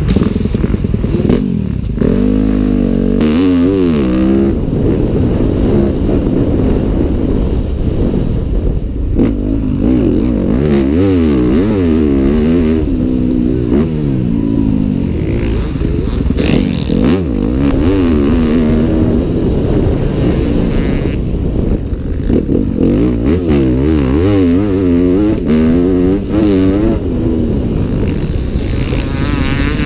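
2015 Yamaha YZ250F 250 cc four-stroke single-cylinder motocross engine, through a full FMF titanium exhaust, revving up and dropping back again and again as it accelerates and shifts. It is heard from the rider's helmet camera.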